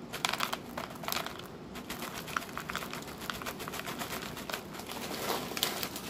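Dry cat kibble poured from a bag into a plastic feeding bowl: a run of small pieces clattering into the bowl, with the bag crinkling.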